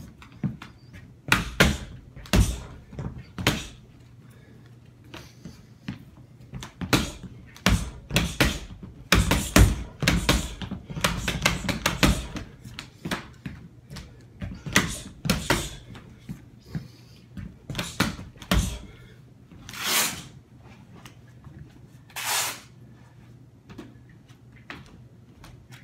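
Boxing gloves thudding against a wall in a rapid, irregular series of punches and kicks, the blows coming thick and fast in the first half and more sparsely later.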